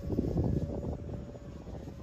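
Wind buffeting the microphone, with the faint steady whine of a Freewing Hawk T1 RC jet's electric ducted fan in flight.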